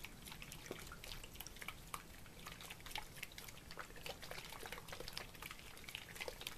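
Coconut cream and castor oil sloshing inside a closed plastic tub with a snap-on lid as it is shaken by hand to mix them. The sound is a faint, rapid run of small clicks and wet sloshes.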